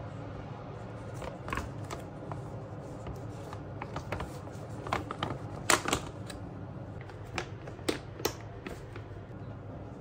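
A stiff packaging pouch crinkling and rustling as it is handled, in irregular crackles and clicks that are loudest around the middle, over a faint steady low hum.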